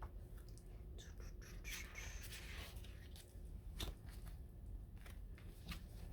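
Glossy photo-book pages of a music album being turned and handled: a couple of seconds of paper rustling, with scattered light clicks and taps and one louder tap about two-thirds through.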